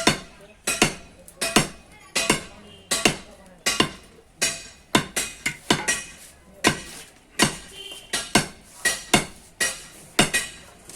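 Blacksmith's hammer blows on metal at the anvil, forging a rebar bending tool: sharp strikes that each ring briefly, about one and a half a second, sometimes in quick pairs.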